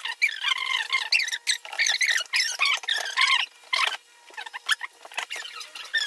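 High-pitched, squeaky chatter of voices, quick bending squeals with short breaks, quieter for a moment near the middle.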